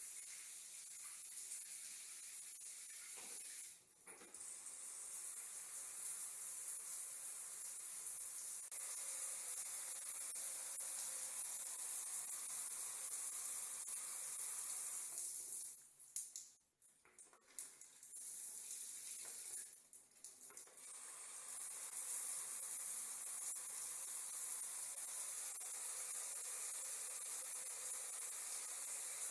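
Water running, a steady hiss, broken off briefly three times: about four seconds in, about sixteen seconds in and about twenty seconds in.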